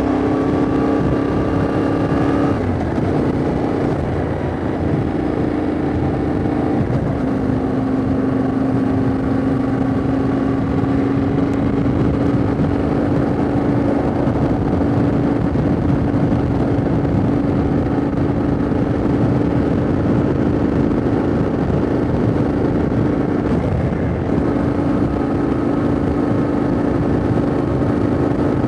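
Yamaha Ténéré 700's parallel-twin engine running at steady cruising revs under way, its note dipping briefly about two and a half seconds in, again around seven seconds, and near the end. Wind rushes over the helmet or bike-mounted microphone throughout.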